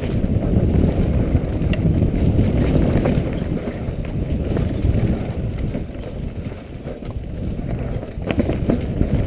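Mountain bike running fast downhill on a dirt trail, heard from a helmet camera: a steady low rumble of wind on the microphone and tyres on the ground, with a few sharp knocks of the bike rattling over bumps, several close together near the end.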